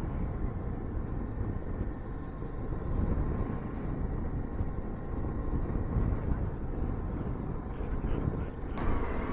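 Suzuki V-Strom motorcycle engine running at a steady cruise, with wind rushing over the microphone. A sudden sharp sound comes in near the end.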